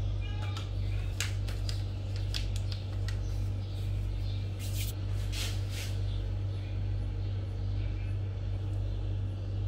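A steady low hum under scattered light clicks and rustles of hands handling fondant and shifting a foil-covered cake board. The clicks bunch about a second in and again around five seconds in.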